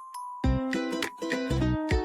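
Background music on plucked strings: a quiet held note for the first half second, then strummed chords resume and carry on.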